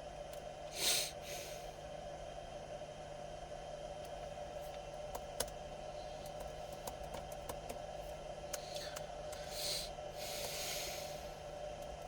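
Faint, irregular clicks of computer keyboard keys being typed over a steady electrical hum, with two breathy nasal exhalations, one about a second in and a longer one near the end.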